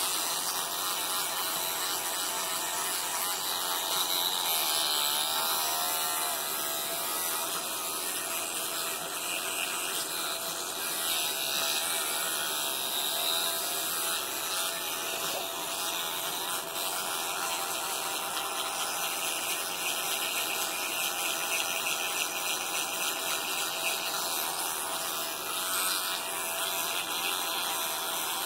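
Electric toothbrush running with a steady buzz, its head in a capuchin monkey's mouth as he brushes his teeth.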